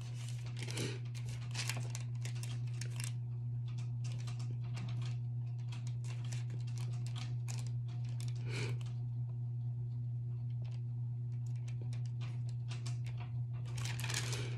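Thin Bible pages rustling under the hands and being turned, with a dense flurry of page-turning near the end, over a steady low hum.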